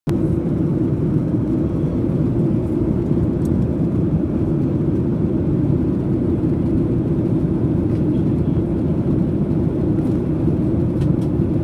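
Airliner cabin noise in flight: the jet engines and rushing air heard inside the cabin as a loud, steady, low noise.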